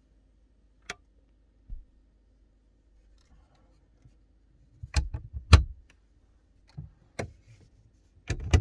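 Scattered short knocks and clicks, about eight in all, the loudest a little after five seconds in and again near the end, over a faint low hum.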